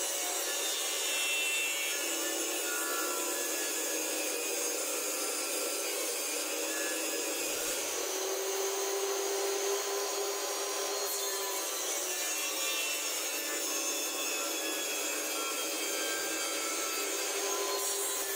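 Homemade table saw running steadily, its circular blade cutting through plywood.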